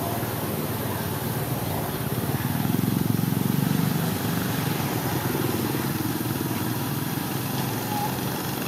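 A motor engine running steadily, growing louder for a second or two about two and a half seconds in.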